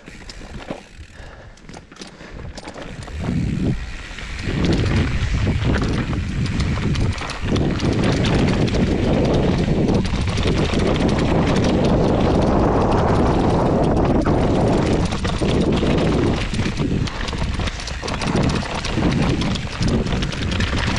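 Mountain bike riding downhill over a rocky dirt trail: tyres rolling over stones and roots with a dense, fast rattle of the bike and wind rushing on the microphone. Quieter at first, then loud and continuous from about four seconds in, easing a little near the end.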